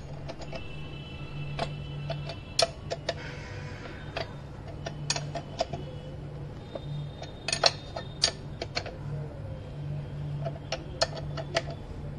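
Irregular metal clicks and clinks from hand work on the open bottom end of a Kawasaki ZX-10R engine, its crankshaft and connecting rods, with a few louder knocks. A steady low hum runs underneath.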